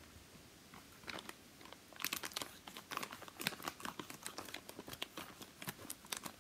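Thin clear plastic toy bag crinkling and crackling as it is handled and opened, quiet at first, then a busy run of short crackles from about two seconds in.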